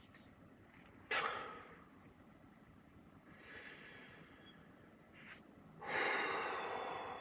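A man breathing heavily through his mouth. There is a sharp breath about a second in, a softer one around three and a half seconds, and a long, loud exhale through pushed-out lips starting near six seconds that slowly fades.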